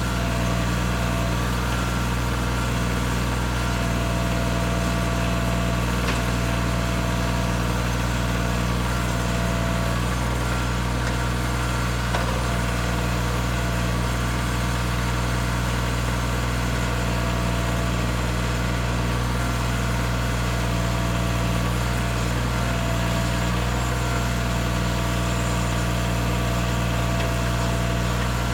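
Bobcat CT225 compact tractor's diesel engine idling steadily, with no revving.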